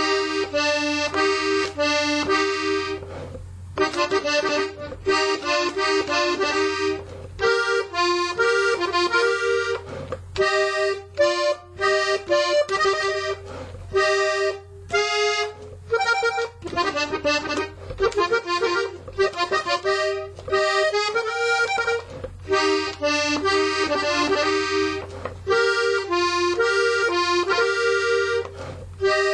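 Hohner Panther three-row diatonic button accordion played solo, running through the first part of a norteño corrido melody in E-flat: quick note-by-note phrases with short breaks between them. A steady low hum sits underneath.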